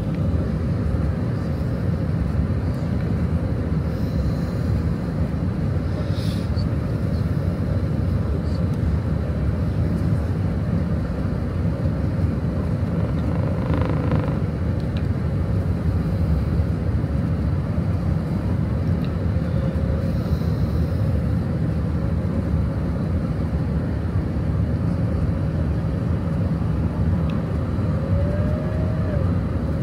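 Cabin noise inside an Airbus A380 during its descent: a steady rumble of engines and airflow with a faint steady whine.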